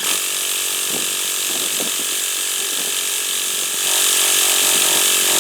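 Electric starter spinning the Traxxas Revo 3.3's nitro engine over with a steady whirring gear noise. It starts abruptly and is held for several seconds without the engine catching; the fuel lines had been fitted backwards during the rebuild.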